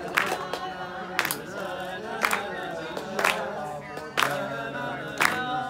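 A group of people singing a melody together, clapping in time about once a second.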